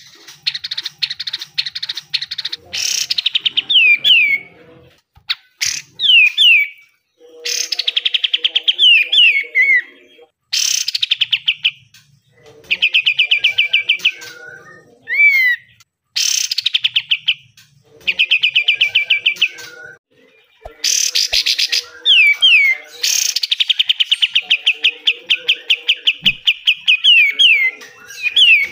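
Golden-bellied gerygone (kapas tembak) singing: phrases of rapid, buzzy rattling notes, the harsh 'besetan', alternating with short descending whistles, one phrase after another with brief pauses between.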